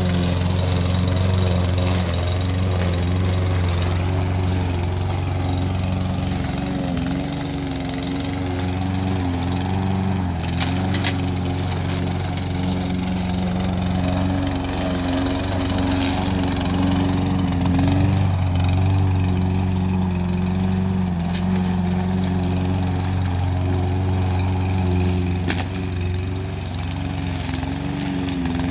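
Briggs & Stratton OHV engine on a walk-behind lawnmower running steadily, its pitch wavering slightly now and then.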